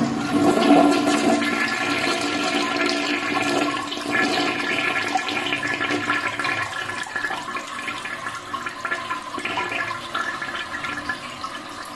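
Push-button toilet flushing: water rushes through the bowl, loudest in the first couple of seconds, then settles into a steadier rushing that slowly fades.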